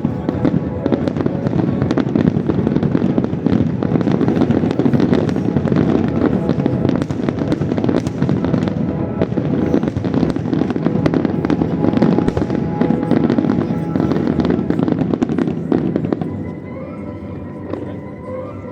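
Fireworks display: a dense barrage of bangs and crackles over accompanying music. About sixteen seconds in the barrage thins out and drops in level, leaving mostly the music.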